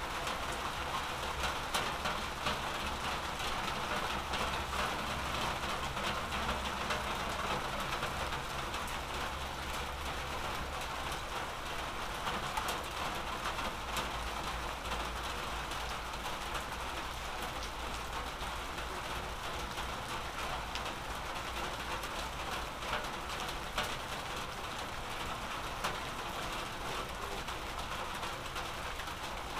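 Steady rain falling, the drops striking nearby surfaces in many small ticks, over a low steady rumble.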